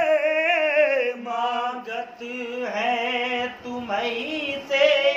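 Sufi devotional song sung without words being clearly formed: long drawn-out notes with a wavering vibrato. The notes drop to a lower pitch about a second in, then rise again in short phrases.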